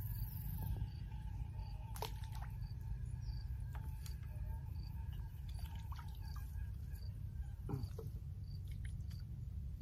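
Outdoor ambience: a steady low rumble with a faint high chirp repeating about every two-thirds of a second, and a few light clicks, the clearest about two seconds in and near the end.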